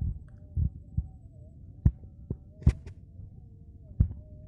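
A series of irregular dull thumps, about seven, with a couple of sharper knocks, over a steady low rumble. Faint wavering tones sit in the background.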